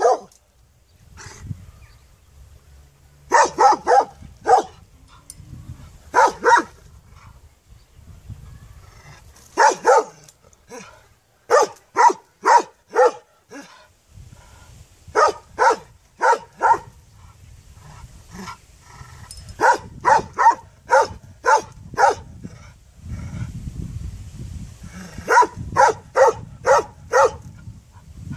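A large dog barking in short bursts of two to five barks, with pauses of a few seconds between the bursts.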